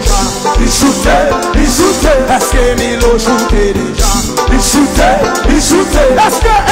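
Live band playing upbeat dance music: electric guitars over bass and a steady kick-drum beat of about two strokes a second.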